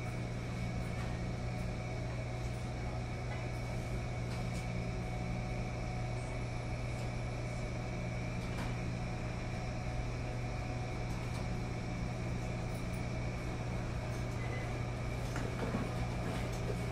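Steady machine hum of commercial front-loading washing machines running in a laundromat, with a few faint clicks and ticks over it.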